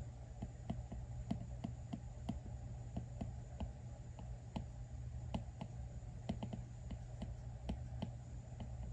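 Apple Pencil tip tapping and clicking on the iPad Pro's glass screen as short sketch strokes are drawn: light, irregular clicks, about three or four a second, over a low steady hum.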